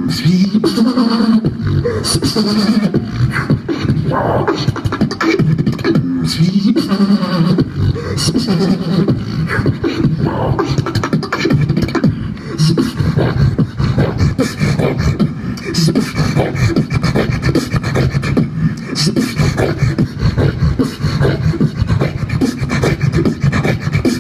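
Solo beatboxing through a handheld microphone and PA: a fast run of mouth-made drum sounds, with a hummed bass line that slides up and down in pitch over the first several seconds.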